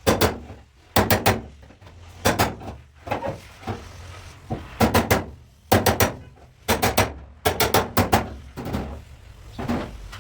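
Hammer striking car-body sheet metal, in quick clusters of two or three blows repeated about every second, each with a short metallic ring: body panel being hammered into shape.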